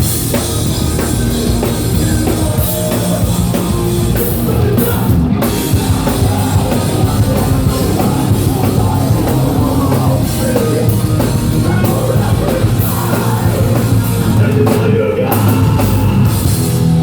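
Hardcore band playing live at full volume: distorted rock instrumentation with a pounding drum kit, dense and continuous.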